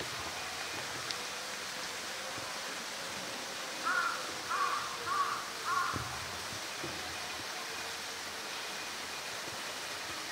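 A crow cawing four times in quick succession, over a steady background hiss.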